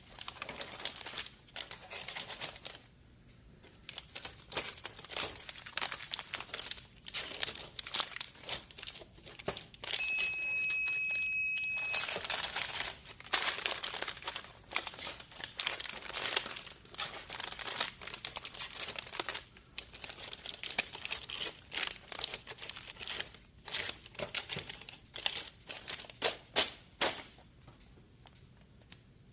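Plastic snack wrappers crinkling and rustling as packs are handled and loaded, with irregular clicks and taps. About ten seconds in, a steady high electronic tone sounds for about two seconds.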